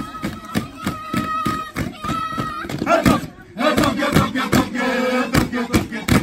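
Traditional Kiribati dance performance: a group of voices chanting and calling out together over a fast, steady run of sharp beats. About halfway through, the voices swell into a louder held chorus.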